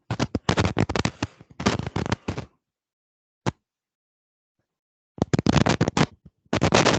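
Bursts of scratchy crackling noise: one lasting about two and a half seconds at the start, a short crackle a second later, and another burst from about five seconds in.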